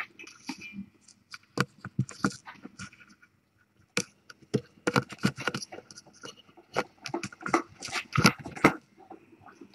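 Irregular soft clicks, taps and scrapes from kittens moving and mouthing close by, coming thicker in the second half.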